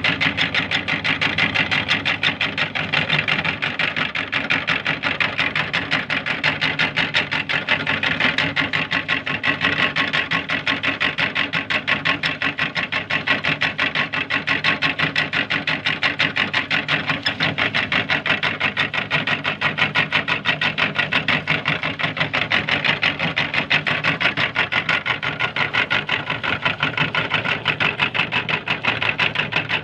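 Electric meat grinder running steadily, its motor humming with a fast, even rattle.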